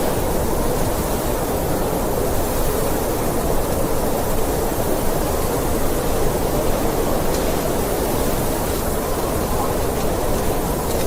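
Blizzard wind blowing steadily, a constant rushing noise with no gusts or breaks.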